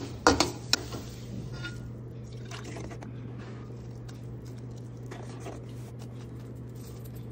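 Faint wet squishing and liquid sounds of pumpkin kheer being stirred and cooked in a pan. A couple of sharp clicks come in the first second, and the sounds sit over a steady low hum.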